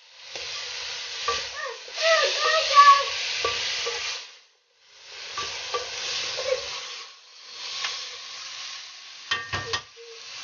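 Diced potatoes, tomatoes, capsicum and spring onions sizzling in hot oil in a metal pot while a wooden spatula stirs and scrapes them, frying them off. The sizzle breaks off briefly about midway, and the spatula knocks against the pot a few times near the end.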